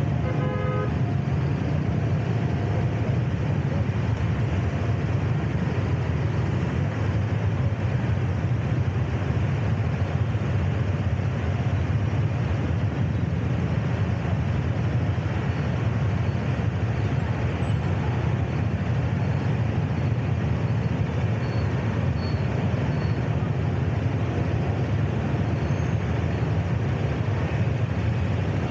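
City street traffic heard while riding along with it: a steady, loud low rumble of engines and wind. A short vehicle horn beep sounds right at the start.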